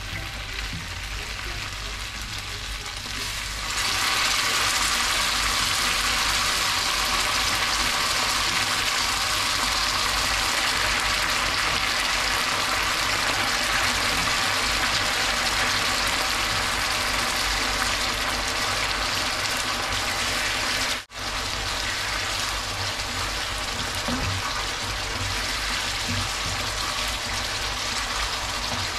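Tomato-paste sauté in a hot frying pan sizzling and bubbling as ladlefuls of broth are poured in; the sizzle grows louder about four seconds in and holds steady, with a brief dropout about two-thirds of the way through.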